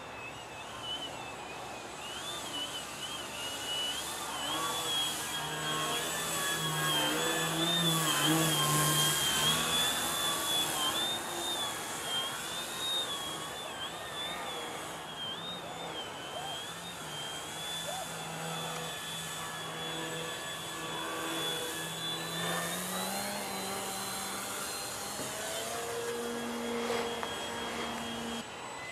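Radio-controlled Extra 260 aerobatic model plane flying overhead, its motor and propeller whining steadily with a wavering pitch. It grows louder during a close pass several seconds in, and the pitch rises near the end as the throttle is opened.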